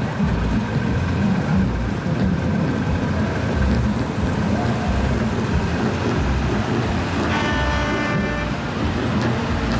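A steady low rumble of truck engines, with a truck horn sounding once for just over a second near the end.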